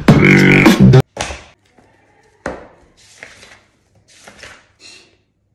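A loud music track with a beatboxed vocal beat cuts off abruptly about a second in. Two sharp knocks on a table follow, then soft rustling of paper as the pages of a large book are turned.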